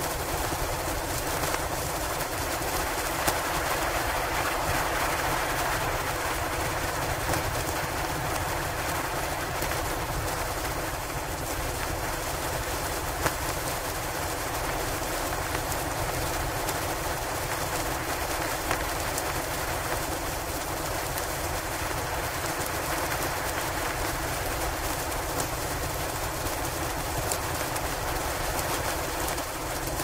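Steady blizzard wind noise, an even rushing that never lets up, with a few faint sharp clicks scattered through it.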